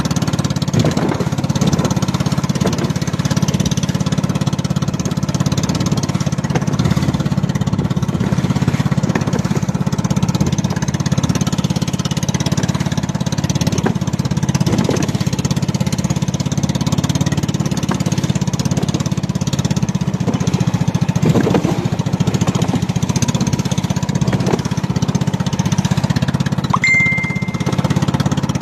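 Small fishing boat's engine running steadily while under way, with a continuous rush of water along the hull.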